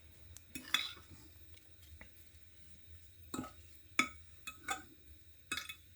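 A fork working through mashed potato, tapping and scraping against the dish: about half a dozen scattered clinks and knocks with quiet between them.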